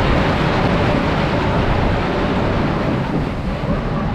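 Philadelphia Toboggan Company wooden roller coaster train rolling on its track into the station, a steady rumble and rattle of the wheels that eases off near the end as the train slows.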